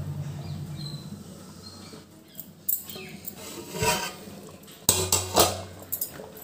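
Metal lid of a cooking pot (degchi) lifted off and handled, with metal clinks and knocks, the loudest cluster about five seconds in, over a pot of rice at a rolling boil.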